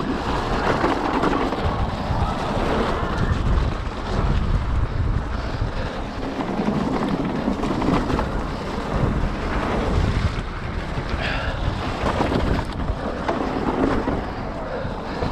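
Wind rushing over the microphone of a mountain biker's camera during a fast trail descent, mixed with the rumble and rattle of the tyres and bike over the dirt trail.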